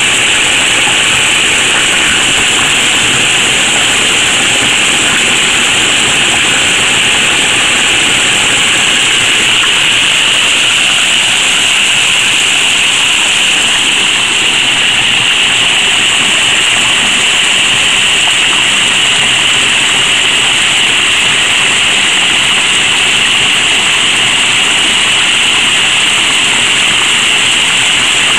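Mountain stream cascading over rocks in small falls: a loud, steady rush of water.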